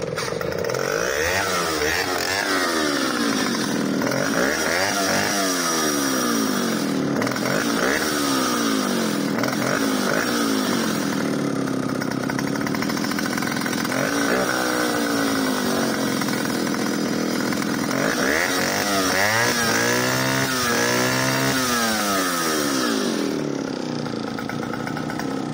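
Solo 60126 vintage 70cc two-stroke chainsaw firing up on a pull and running, revved up and down repeatedly, with a run of quick revs about three-quarters of the way through. It is then shut off at the end.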